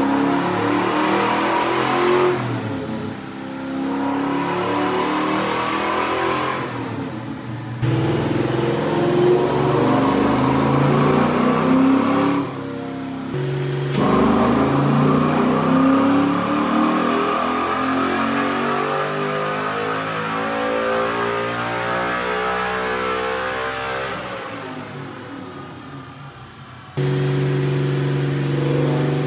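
Ford Coyote 5.0 V8 (a Gen 1 F-150 engine) running on a chassis dyno, revving up under load and winding back down over several pulls, with a few abrupt cuts and a steady note near the end.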